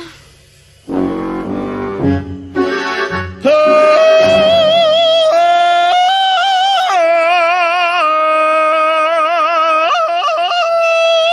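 A short instrumental music cue, then a cartoon rabbit singing one long, loud operatic note with wide vibrato, stepping up and down in pitch a few times.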